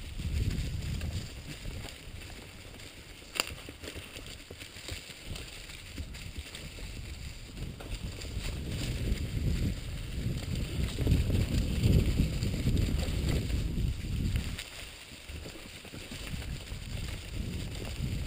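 Mountain bike riding fast along a leaf-covered dirt trail: an uneven rumble from the tyres on the ground and the crunch of dry fallen leaves, with the bike rattling. One sharp click about three and a half seconds in; the rumble grows louder in the middle and eases off near the end.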